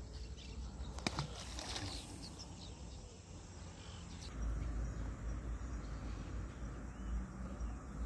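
Outdoor ambience by a creek with insects chirping faintly, a few light clicks, and a low rumble starting about halfway in.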